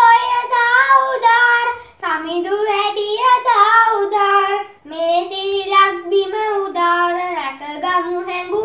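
A child's voice singing a melody unaccompanied, in sustained sung phrases with short pauses for breath about two seconds and about five seconds in.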